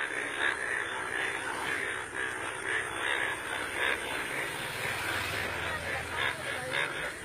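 A dense chorus of Indian bullfrogs, the bright yellow breeding males, calling together from a flooded monsoon puddle: many overlapping, honking croaks repeating without a break. It is a monsoon breeding chorus, the males calling to attract females.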